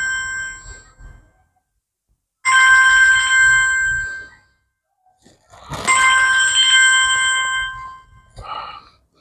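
Mobile phone ringing with an incoming call: a ringtone of several steady high tones sounding together, repeating in rings of about two seconds with short silent gaps, a ring ending about a second in and two more following.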